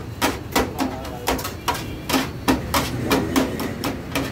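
Shawarma chicken being chopped on a steel tray: a quick, irregular run of sharp strikes, about three a second, as the blade hits the metal through the meat.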